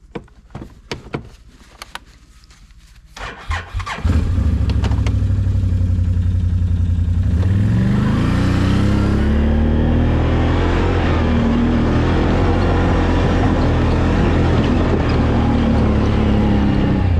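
ATV engine starting up about four seconds in after a few faint clicks, then running steadily, its pitch rising a few seconds later as the quad pulls away.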